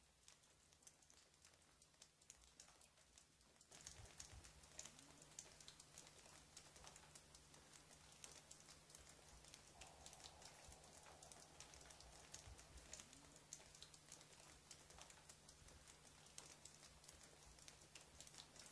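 Faint rain patter: a dense, irregular run of small drips and taps over a steady low hum, getting louder about four seconds in.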